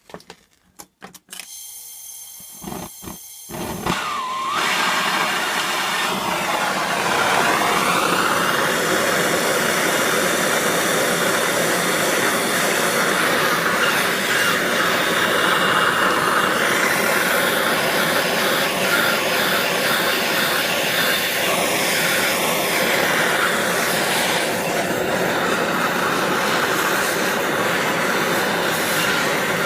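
Handheld gas torch: a few clicks, then the flame catches about four seconds in and burns with a loud, steady hiss.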